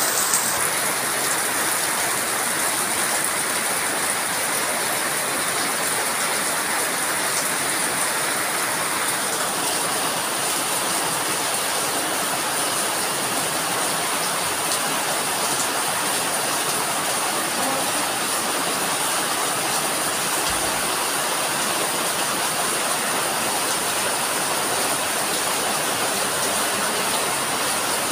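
Heavy tropical rain pouring steadily on leaves and paving, a dense even hiss.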